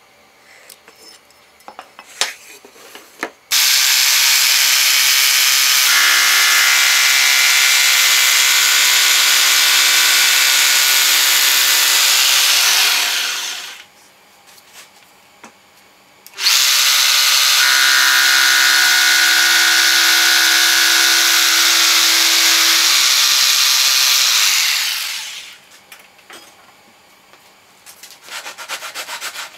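Jigsaw cutting into a clamped wooden board in two runs of about ten seconds each, fading out at the end of each cut. A few light clicks and taps come before the first cut.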